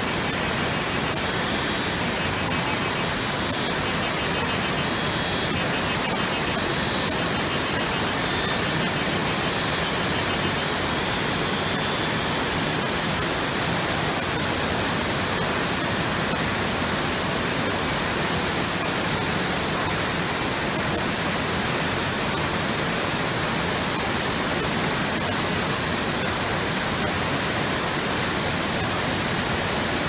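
Shifen Waterfall, a broad curtain of water, falling into its plunge pool: a steady, loud rush of falling water that does not change.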